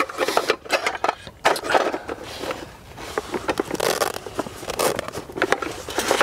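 Rustling and scraping of a canvas pouch being handled as a frying pan and metal plate are packed into it, with many small clicks and knocks.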